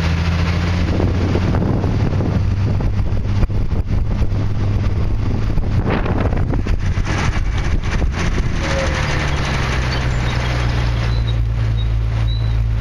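Classic Triumph sports car on the move, heard from the car: a steady engine drone under wind and road noise, with gusty buffeting in the middle. The engine note drops about nine seconds in.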